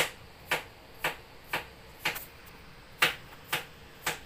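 A series of sharp clicks, about two a second, eight in all with a short break in the middle.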